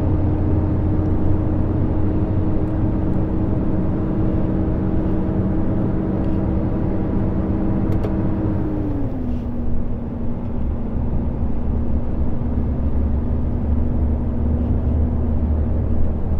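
Truck's diesel engine running steadily under way with a low rumble, heard from the cab. About nine seconds in the engine note drops to a lower steady pitch.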